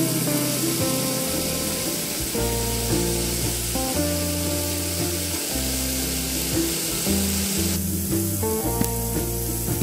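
Onion-tomato masala frying in oil in a metal pot, a steady sizzling hiss as the mint is added and stirred in; the sizzle cuts off near the end. Background music with held notes plays throughout.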